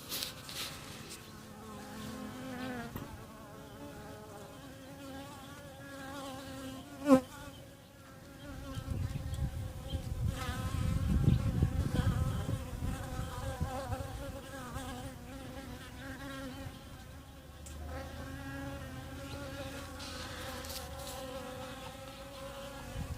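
Bees buzzing around a water bowl, their wing hum wavering in pitch. There is a single sharp knock about seven seconds in, and a low rumble through the middle.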